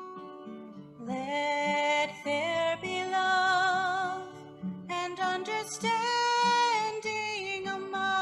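A woman singing a slow, sustained melody to an acoustic guitar accompaniment. The voice comes in about a second in over the guitar and pauses briefly about halfway through.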